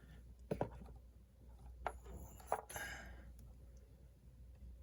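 A few light clicks and taps of small hard objects being handled, about half a second in, near two seconds in and again about half a second later, with faint rustling between them.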